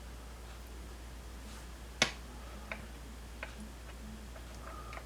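A sharp click about two seconds in, followed by a few fainter clicks and taps from equipment being handled, over a steady low hum.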